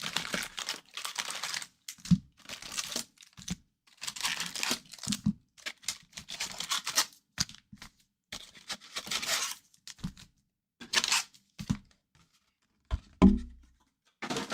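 Plastic wrapping on a box of hockey trading cards being torn and crumpled in about six separate rustling bursts, with small clicks between them and a knock near the end.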